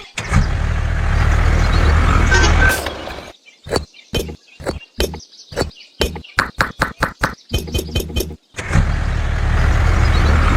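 A motor running with a low rumble, stopping about three seconds in; then a quick, uneven series of short knocks for about five seconds; then the motor running again near the end.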